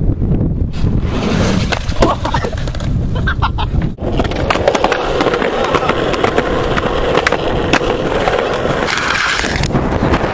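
Skateboard wheels rolling with scattered clacks: first on a plastic playground slide, then, after a sudden break about four seconds in, a steadier, denser rolling on a rough path.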